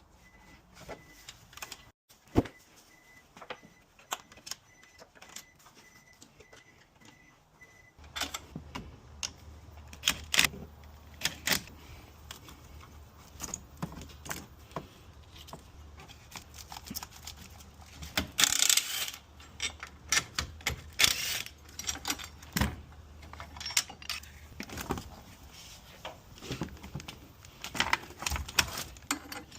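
Hand tools and metal battery hardware clinking, rattling and knocking in irregular sharp clicks while a car battery is swapped. A faint steady beeping runs under it for the first several seconds, and about eight seconds in a low hum starts up beneath the clatter.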